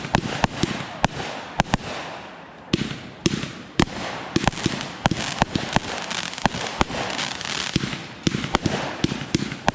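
Consumer firework cake (Venom) firing: sharp reports, irregularly two or three a second, with crackling between them.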